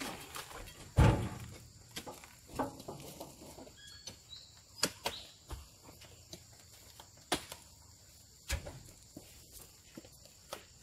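Oil palm fruit bunches landing on a heaped truck load as they are pitched up on spiked poles: one heavy thump about a second in, then scattered lighter knocks and clicks.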